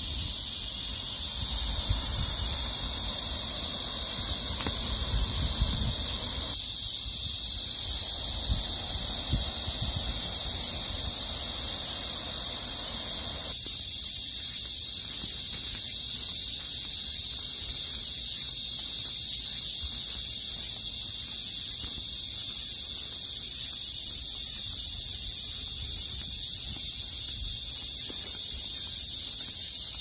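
Dense, steady chorus of insects shrilling in high pitch without a break, the loudest sound throughout.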